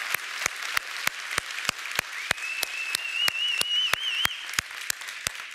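Church congregation applauding, with many hands clapping. About two seconds in, someone gives a long, wavering, high whistle for about two seconds.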